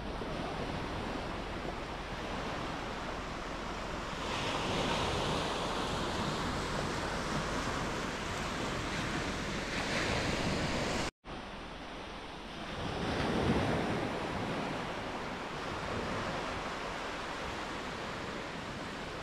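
Small sea waves breaking and washing up a sandy beach, a steady surf rush that swells and ebbs, the loudest wave surge about two-thirds of the way in. Wind buffets the microphone, and the sound cuts out for an instant just past halfway.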